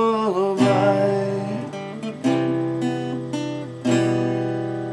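Acoustic guitar strummed: three chords about a second and a half apart, each left to ring and fade. A held sung note ends with a downward slide just after the start.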